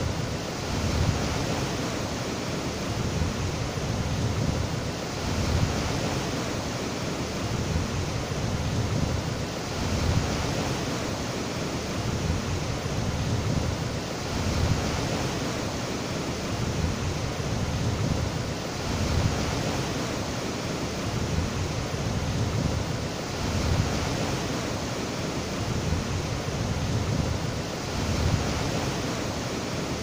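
River white water rushing over rocks: a steady, dense rushing noise, with a deep low rumble that swells and fades every second or two.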